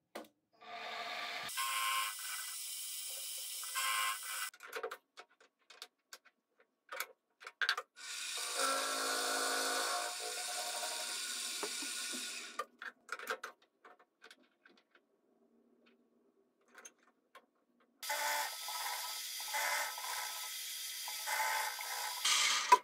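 Fabtec BF30L Vario drill-mill with a 1.1 kW DC motor running, its end mill cutting metal in three stretches of a few seconds each, with scattered clicks and knocks in the pauses between.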